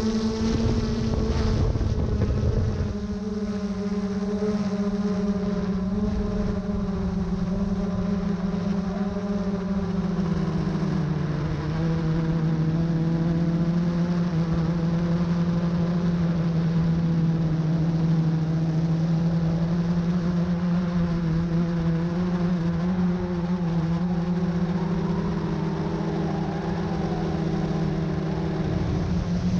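GoPro Karma quadcopter's propellers humming steadily in flight, one steady pitched tone that dips a little in pitch about eleven seconds in. Wind rumbles on the microphone for the first few seconds and again near the end.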